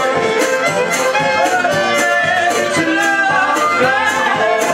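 Live acoustic folk band playing: fiddle over strummed guitars and banjo keeping a steady beat, with voices singing along.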